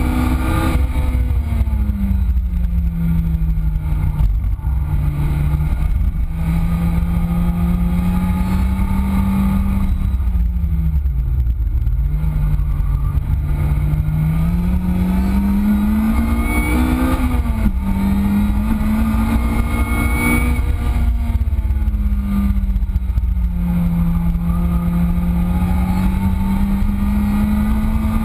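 Lotus Exige S's supercharged four-cylinder engine driven hard on a race track: the engine note climbs under acceleration and drops on upshifts and braking, dipping low about eleven seconds in for a slow corner before pulling up again, with a sharp drop from a gear change a little past halfway. A heavy constant rumble of wind and road noise runs under it.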